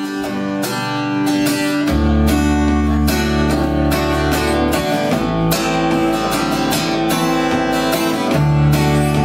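Live band playing: an acoustic guitar strummed in a steady rhythm, with an electric bass coming in underneath about two seconds in.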